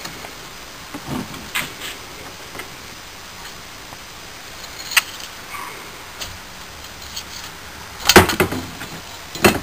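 Steel tongs knocking and scraping against a freshly poured metal casting as molding sand is knocked off it in a tray. There are scattered light clicks, then a cluster of louder metallic knocks about eight seconds in.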